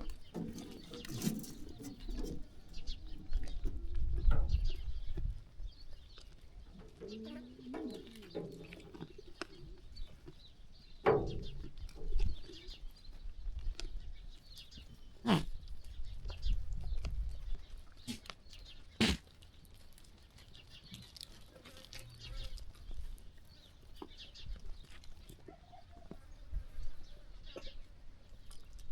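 Sheep farm ambience: livestock shuffling and calling, with birds and a few sharp knocks.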